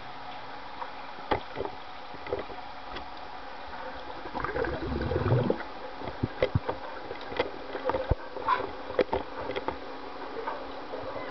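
Underwater pool sound picked up by a submerged camera: a steady hiss with scattered sharp clicks and knocks. A louder muffled rushing, water-like burst comes about four to five seconds in, followed by a quick run of clicks.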